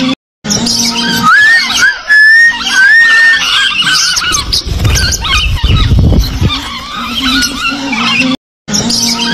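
Flock of lovebirds chattering: shrill squeaks and whistled chirps that slide up and down in pitch, with a low rumble in the middle. The sound cuts out briefly twice, just after the start and near the end.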